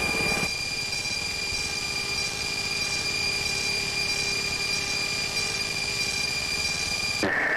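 Jet fighter cockpit noise: a steady background noise under a constant high-pitched electronic whine, with a fainter, higher tone pulsing about twice a second. The low rumble drops away about half a second in, and at the very end the sound cuts abruptly to something different.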